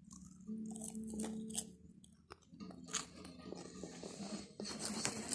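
Close-up chewing and crunching of a cheese-flavoured puffed corn snack, with irregular crisp crunches as it is bitten and chewed.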